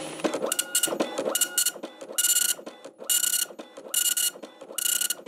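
Dot-matrix printer printing: the print head buzzes across the paper in six short passes, about one a second, with brief quieter gaps between.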